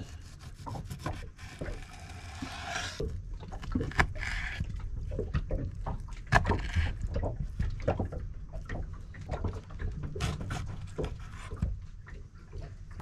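Chef's knife cutting a mangrove jack fillet on a wooden chopping board: irregular knocks of the blade on the board, two of them sharper, with scraping strokes between, over a steady low rumble.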